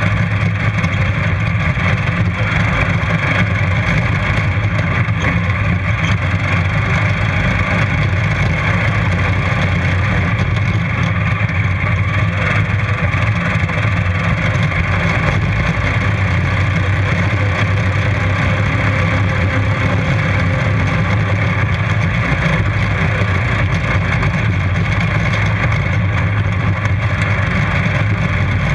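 Racing lawnmower engine running steadily under load, heard up close from a camera mounted on the mower. It is one loud, even drone with little change in pitch.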